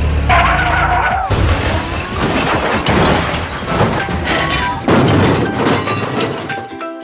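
Cartoon sound effects: several sudden crashes, about a second and a half apart, over background music.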